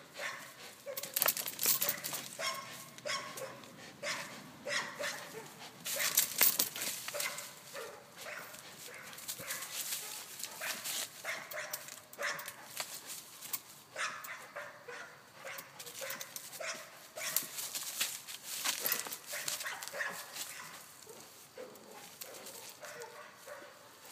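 A pit bull making short, irregular barking sounds while hanging on and tugging at a springpole rope, its feet scuffing dry leaves.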